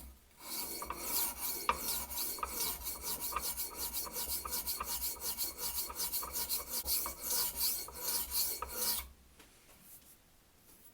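A knife blade stroked back and forth on a dry sharpening stone, used without water or oil: a rasping scrape in quick, even strokes, about three a second, stopping about nine seconds in.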